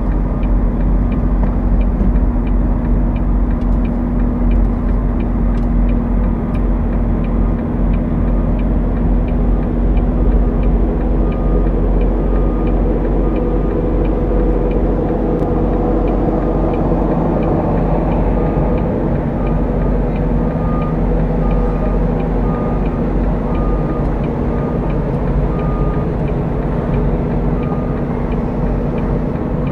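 Semi truck's diesel engine running at low speed, heard from inside the cab as the truck manoeuvres into a parking space. A light regular ticking runs through the first part, and from about halfway a steady series of short, evenly spaced beeps joins it.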